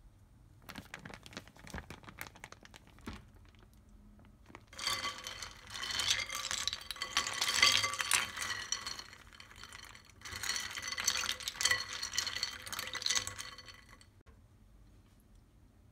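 Ice cubes clinking and water sloshing in a bowl while a plastic zip bag of cooked chicken livers crinkles as it is pressed into the ice bath. A few scattered clicks come first, then two stretches of busy clatter, the first about five seconds long and the second about four.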